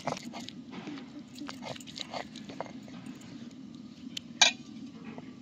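Stone roller being worked back and forth on a ridged stone grinding slab, crushing a wet paste of onion, garlic, ginger and tomato: a steady low grinding rumble with many irregular wet scrapes and clicks. One sharp knock about four and a half seconds in.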